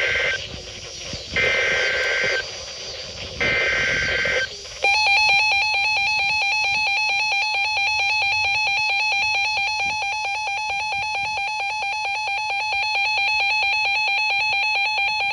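Emergency Alert System header data bursts, short buzzy warbling bursts about a second apart (the tail of one, then two more), followed about five seconds in by the steady, harsh alert tone that announces a new severe thunderstorm warning broadcast.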